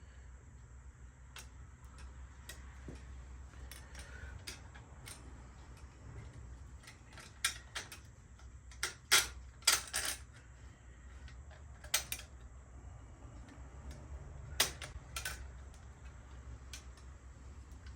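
Irregular sharp metallic clicks and taps of small lowrider bicycle parts being handled and fitted. The loudest cluster comes about nine to ten seconds in.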